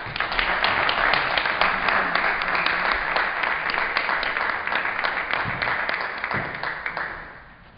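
Audience applauding, with the clapping dying away near the end.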